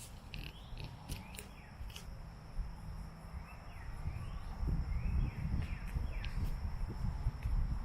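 Close-miked chewing of sushi: dull low thuds of the jaw working, with small clicks and mouth sounds over them, denser in the second half.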